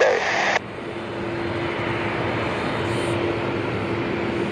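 Jet airliner engines running, a steady noise with a faint steady hum that grows a little louder over the first second or two. A clipped air traffic control radio transmission cuts off about half a second in.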